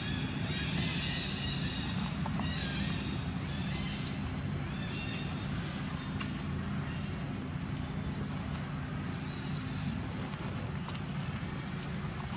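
Birds chirping in short, high-pitched bursts every second or so, some held for about a second, over a steady low hum.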